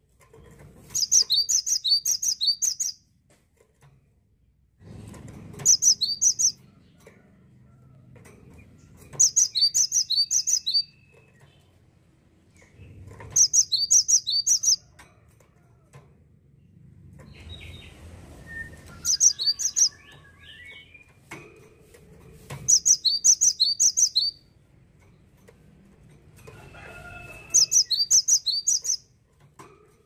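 Cinereous tit (gelatik batu) singing: about seven loud bursts, each a quick run of repeated high two-part notes lasting a second or two, coming every three to four seconds. Faint low rustling sounds lie between the bursts.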